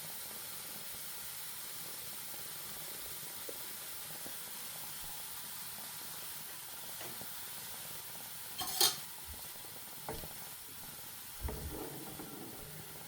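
Hot oil sizzling steadily as gram-flour (besan) batter fries into mihidana. About nine seconds in there is one sharp clatter, and two softer knocks follow of a utensil against the pan.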